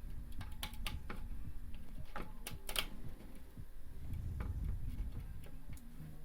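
Light plastic clicks and taps, irregular and in small clusters, from handling the plastic intake nozzle and ventilation tube as they are fitted together, over a low rumble of handling.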